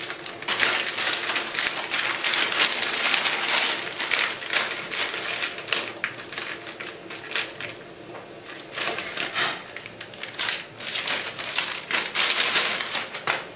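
Plastic instant-noodle wrapper crinkling and rustling in the hands in irregular bursts as the packet is opened and the dry noodle block is taken out. It is loudest in the first few seconds and again near the end.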